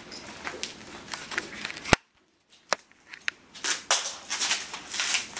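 A plastic mailer package being pulled and torn open by hand: scattered sharp clicks and snaps with short bursts of crinkling and ripping, a loud snap about two seconds in, then louder rustling near the end.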